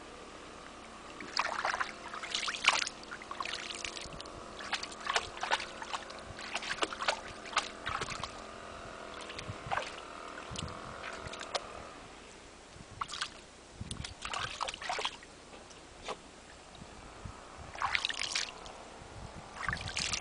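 Shallow lake water splashing and sloshing in irregular bursts as a miniature schnauzer wades and steps about at the water's edge.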